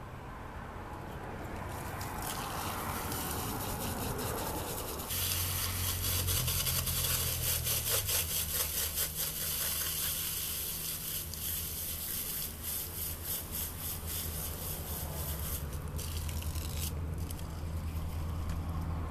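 Garden hose spraying water onto an olive sapling's root ball, washing the soil off the bare roots. A steady, hissing spray comes in abruptly about five seconds in and stops a few seconds before the end.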